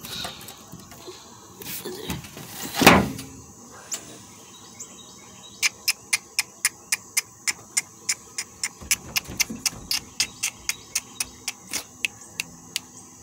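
A rapid series of sharp clicks, about four a second, starting about halfway through. Before that, a single louder thump about three seconds in.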